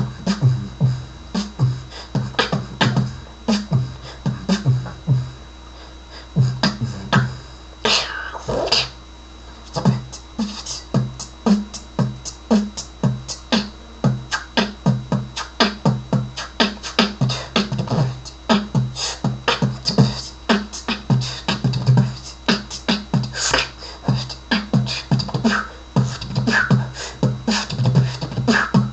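Freestyle beatboxing: a steady hip-hop beat of mouth-made bass kicks, snares and hissing hi-hats, with a brief vocal glide partway through.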